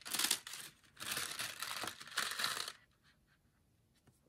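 Heavy breathing through a mouth full of spicy jelly beans: a few long, rushing breaths over the first few seconds, then quiet near the end.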